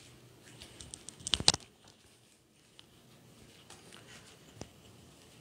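A quick run of sharp clicks and knocks about a second in, the kind made by someone moving and handling things right beside the recording phone, then faint room tone with a few soft ticks.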